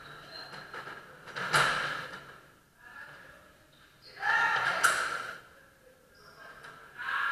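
Sabre fencing lesson action: two sudden loud bursts of blade strikes and footwork, one about a second and a half in and a longer one around four to five seconds in, with quieter shuffling between.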